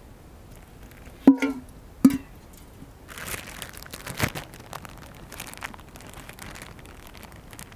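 Two sharp metallic clinks of a metal camp cup, each ringing briefly, under a second apart; then a plastic bag of flour crinkling for a few seconds as it is picked up and handled.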